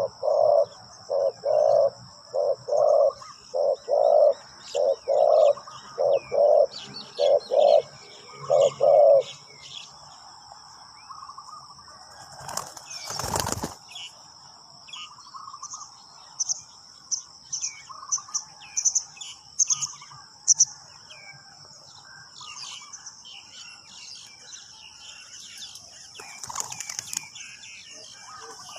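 Spotted dove cooing: a loud, even run of low coo notes for about nine seconds, then it stops. About halfway through comes one brief noisy rustle. Faint chirps from small birds and a steady high insect drone run underneath.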